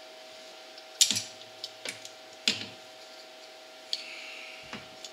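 Exhaust springs being stretched with vice grips and snapped onto the exhaust of a Polaris Sportsman 400 ATV. About five sharp metallic clicks and clanks, the loudest about a second in, over a faint steady hum.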